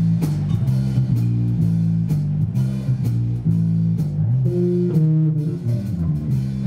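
Live blues-rock band playing an instrumental intro: a repeating electric guitar and bass guitar riff over a drum kit.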